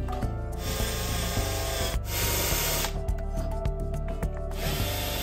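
Cordless drill/driver driving screws into spruce 2x4 timber to join a desk leg frame, in three runs of about a second each, over background music.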